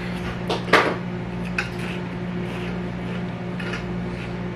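A steady low electrical hum with a few light knocks in the first second and fainter clicks after.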